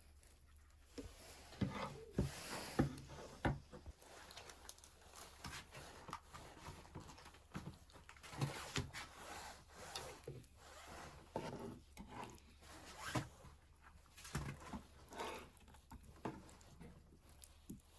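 Faint, irregular small knocks and clicks with rustling between them, busiest a couple of seconds in.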